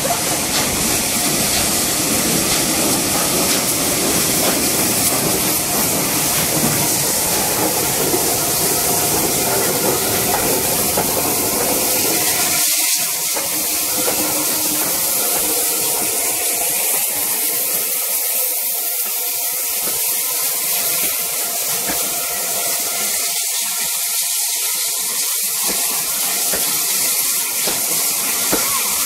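Steam locomotive hissing steam as it runs in with its train. The deeper part of the noise cuts off about thirteen seconds in, leaving a steady hiss as the coaches pass close by.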